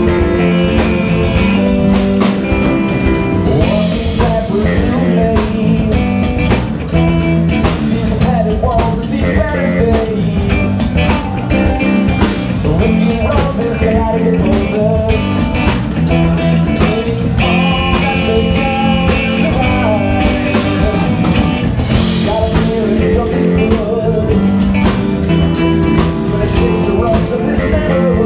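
Live band playing a rock song: electric guitar, electric bass, keyboard and drums, with the guitarist singing into the microphone.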